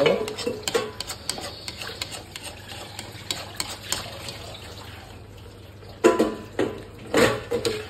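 A metal spatula stirring thick, saucy pasta in a kadhai, scraping and clicking against the pan with wet squelches of the sauce, and two louder strokes near the end.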